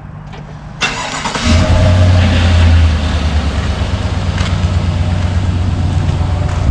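Vehicle engine starting about a second in, revving up briefly and then running steadily.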